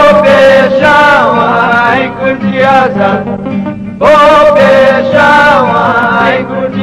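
Background music: a voice singing long, wavering held notes over a steady instrumental drone, with a fresh phrase beginning about four seconds in.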